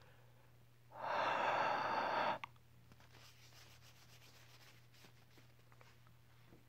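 A loud hiss of air right at the camera lens for about a second and a half, cut off by a click, then faint rubbing and handling at the lens as it is cleaned.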